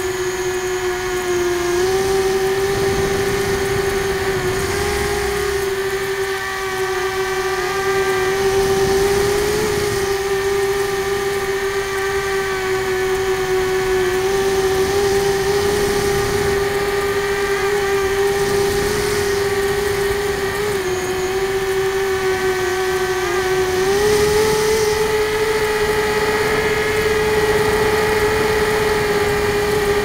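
RCExplorer Tri-Mini tricopter's three F80 1900KV brushless motors spinning 6x4.5 three-blade propellers in flight, a steady whine that shifts slightly in pitch with throttle, stepping up a little about three-quarters of the way through.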